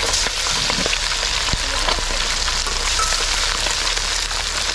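Small fish pan-frying in hot oil: a steady sizzle with fine crackles, stepping up in loudness at the very start.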